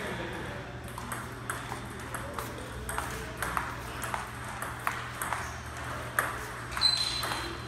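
Table tennis rally: the ball clicks sharply back and forth off the paddles and the table, a quick series of ticks about half a second apart. A short high squeak comes near the end, together with the loudest hit.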